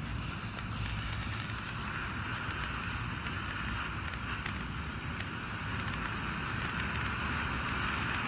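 Two Super Jumbo Cone fountain fireworks burning side by side, spraying sparks with a steady hiss that grows slowly louder.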